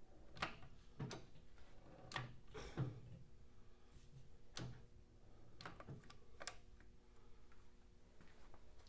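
Faint, irregular clicks and light knocks, about a dozen in all, from hand work on the Kearney & Trecker 2D milling machine's opened gearbox as a handle is turned.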